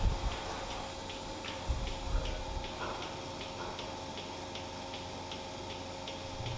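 Steady mechanical ticking, about three ticks a second, over a low steady hum, with a few dull low thumps near the start and about two seconds in.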